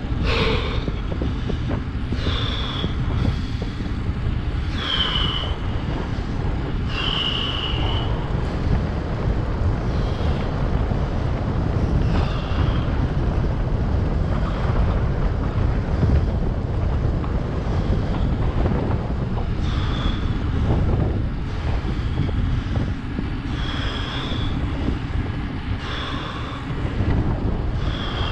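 Wind buffeting the microphone of a phone mounted on a moving bicycle: a steady low rush of air. Short high squeaks recur every few seconds over it.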